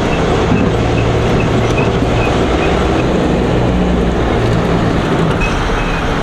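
Steady running noise of a 6x6 truck heard from inside its cab as it drives slowly: a low engine hum under tyre and road noise.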